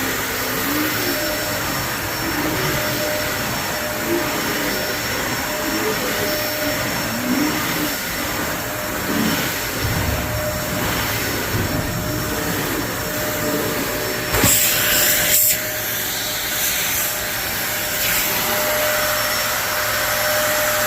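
Phantom Fury bagless cyclonic upright vacuum cleaner running steadily with a constant high whine over its motor and airflow noise, with a brief louder rush about fourteen seconds in.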